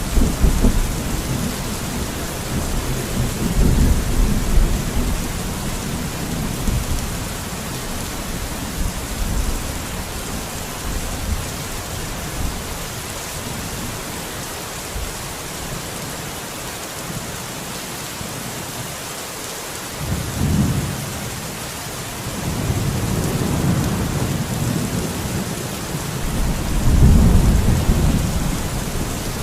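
Steady rain falling, with low rumbles that swell and fade several times, the strongest near the start and near the end.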